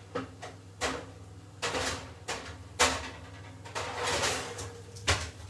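Kitchen clatter from an oven and baking trays being handled: a string of sharp knocks and clunks, loudest about three seconds in, with a couple of longer scraping, rustling stretches, over a steady low hum.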